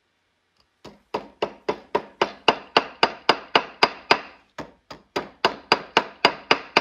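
Hammer tapping a twisted-wire puppet armature joint against the anvil of a bench vise. The strikes come in a quick, even run of about four a second with a ringing after each, starting about a second in and pausing briefly midway. The hammering flattens the wire crossing so the joint stops spinning.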